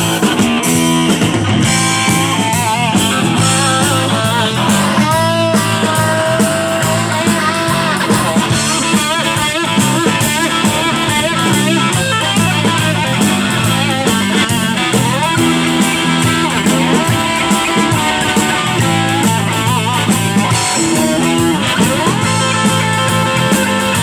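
Live blues-rock band playing an instrumental break. A lead electric guitar plays bent, wavering notes over bass, rhythm guitar and drum kit.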